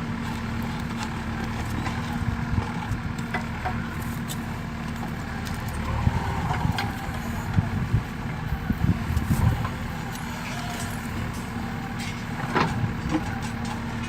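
JCB 3DX backhoe loader's diesel engine running steadily, with scattered knocks and clanks from the working machine about six to ten seconds in and again near the end.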